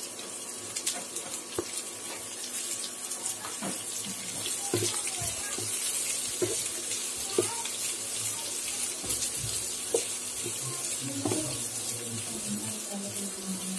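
Chopped onions sizzling in hot oil in a non-stick frying pan, a steady hiss, while a wooden spatula stirs them with scattered scrapes and taps against the pan.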